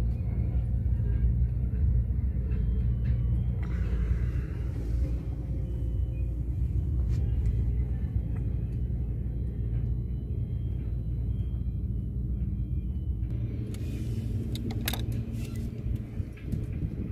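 A compressor running with a steady low rumble, joined by a short hiss about four seconds in and a few clicks with hiss near the end.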